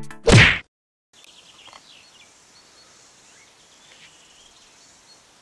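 A brief loud whoosh at the very start, then about half a second of silence. After that comes faint outdoor morning ambience with scattered short bird chirps.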